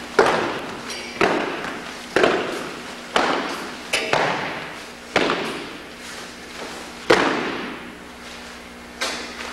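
A squad of drill cadets' boots striking a gymnasium floor in unison while marching: a sharp, echoing thud about once a second. A heavier stamp comes about seven seconds in, then one more shortly before the end.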